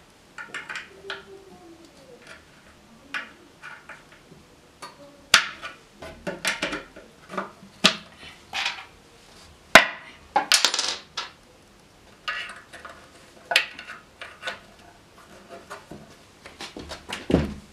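A hand screwdriver and small metal fasteners clicking and clinking against the desk frame as the fasteners are screwed in during flat-pack desk assembly: irregular clicks, a few of them sharper than the rest.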